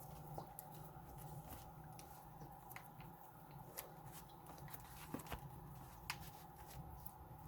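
Faint, steady low hum of a tractor engine heard from inside the cab, with scattered light clicks and ticks.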